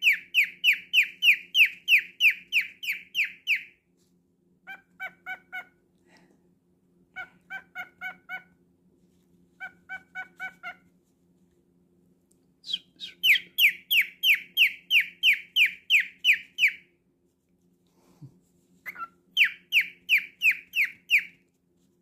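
Cockatiel calling in bouts: rapid runs of loud, falling chirps at about four a second, with shorter runs of softer, lower notes between them. The bird is a mimic, mixing canary-like chirping with dog-like imitations.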